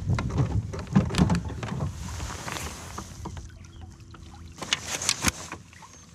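Knocks and rattles of a caught largemouth bass being handled in a plastic kayak and laid on a plastic Ketch measuring board: a run of sharp knocks through the first few seconds, a quieter spell, then another cluster of knocks about five seconds in.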